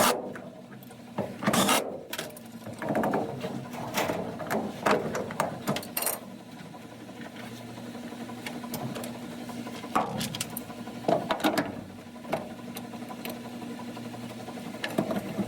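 Hand work on a washer's drain pump being refitted: irregular clicks, knocks and short mechanical rattles as screws are driven, the hose clamp is put back on and parts are handled, over a faint steady hum.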